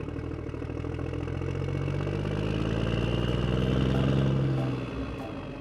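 Engine running steadily, a low, deep drone that grows louder about four seconds in and then eases off.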